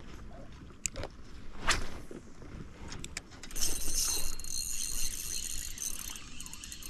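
Small spinning reel being worked: a few clicks, then the reel's gears whirring as line is cranked in, ending in a run of quick ratchet-like clicks.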